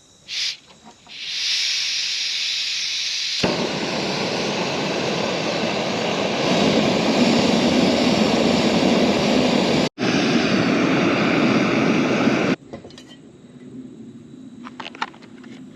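Portable gas camp stove burner running with a steady hiss that becomes a louder, fuller rush a few seconds in, then stops abruptly near the end.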